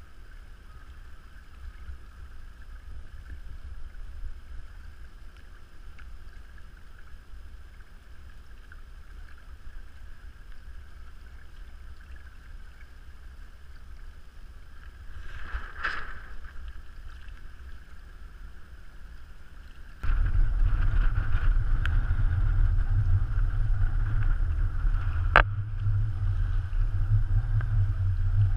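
Wind rumbling on the camera microphone and water rushing along the hulls of a Hobie Tandem Island sailing trimaran under sail. About two-thirds of the way through the sound suddenly gets much louder and stays loud, and a single sharp knock follows a few seconds later.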